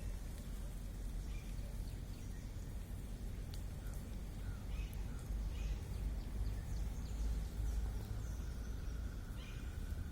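Outdoor background: a steady low rumble with faint, scattered bird chirps and a few small clicks.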